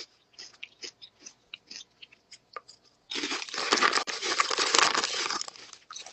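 Close-up crunching of crunchy chips being chewed, in short separate crunches. About three seconds in, a plastic chip bag crinkles loudly for a few seconds as hands dig into it, then the crunching resumes briefly.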